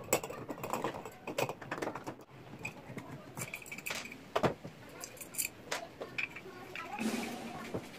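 Irregular light clicks, taps and knocks of small parts and tools being handled, with no steady machine sound.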